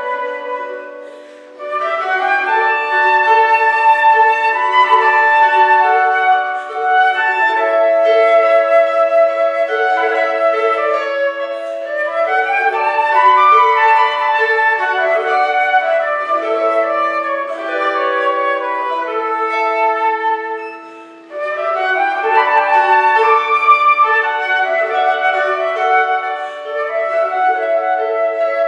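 Concert flute playing a melody over plucked gusli (Russian psaltery) accompaniment. The music drops briefly between phrases, about a second in and again around twenty seconds in.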